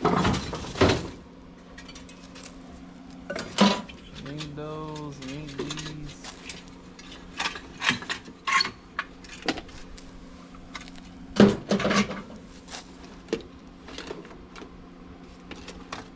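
Loose metal car parts clinking and clanking as they are handled and sorted, a string of short knocks and rattles, with louder clanks right at the start and again about two thirds of the way in.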